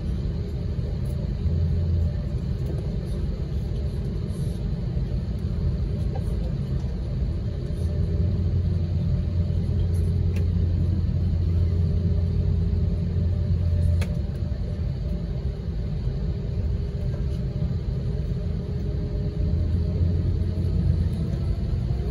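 Steady low rumble in the cabin of an Airbus airliner taxiing slowly, its jet engines running at low power, with a faint steady hum over the rumble. The rumble swells a little for several seconds in the middle.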